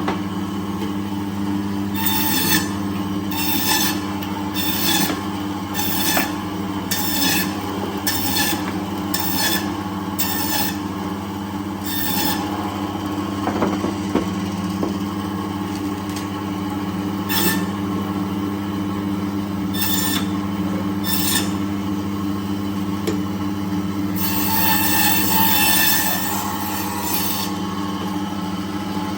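A blade scraping on fish in short rasping strokes, about one and a half a second, then fewer, with one longer scrape near the end, over a steady low hum.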